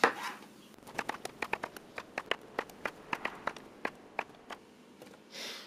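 Kitchen knife cutting tomatoes on a wooden cutting board: a run of quick, irregular taps of the blade striking the board.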